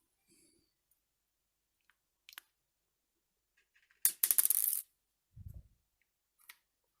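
Small steel lock parts clattering and jingling briefly about four seconds in, like coins dropped on a hard surface, between a few light clicks, followed by a dull low thump.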